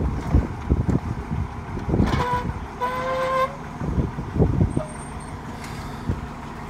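Well-drilling rig working as a steel liner is pushed down the borehole: machinery running steadily under irregular knocks and clanks, with two short high squeals about two and three seconds in.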